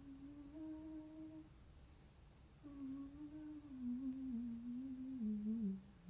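A woman humming a slow tune to herself: a short held phrase, a pause, then a longer phrase that steps gradually down in pitch.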